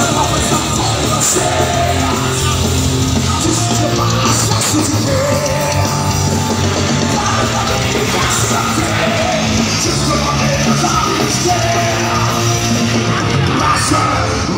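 Heavy metal band playing live, with distorted electric guitars, bass and drums and the singer shouting the vocals.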